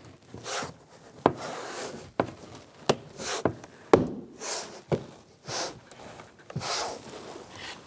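Hyundai Accent front door trim panel being pushed onto the door, its plastic retaining clips snapping in with several sharp clicks, between short rustling scrapes of the plastic panel against the door.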